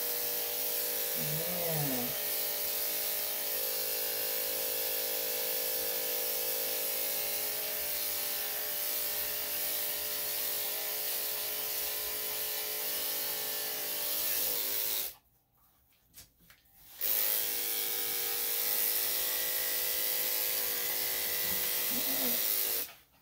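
Electric dog grooming clippers running with a steady hum. They are switched off about fifteen seconds in, back on two seconds later, and off again just before the end.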